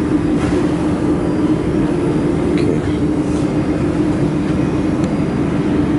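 Dust collection fan of a laser welding machine running steadily: an even whooshing hum with a constant low tone, and a few faint clicks.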